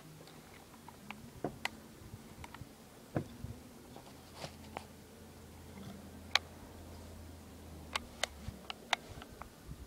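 Scattered sharp clicks and light knocks from handling a Crosman 1377 pump air pistol, with one louder click about six seconds in and a quick run of clicks near the end. A faint low hum runs underneath through the middle.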